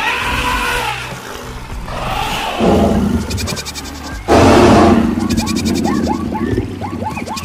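Overlapping animal sound effects for a stampede of mixed animals: goat-like bleating among other animal calls. A loud harsh call comes about four seconds in, followed by a quick run of short, falling chirp-like calls near the end.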